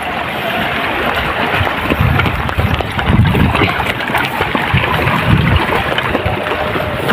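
Wind buffeting the microphone while moving: a steady rushing noise with irregular low thumps, heaviest around the middle.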